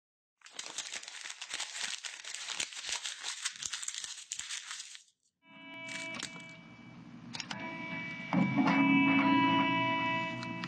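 Dry crinkling, crackling paper noise for about five seconds, then soft music with held notes and a low bass starts, growing fuller about eight seconds in.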